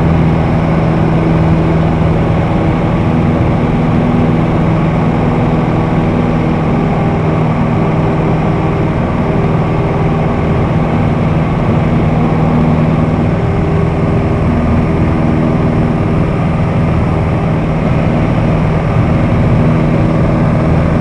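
Steady drone of a light propeller aircraft's engine in level flight, heard from inside the cabin.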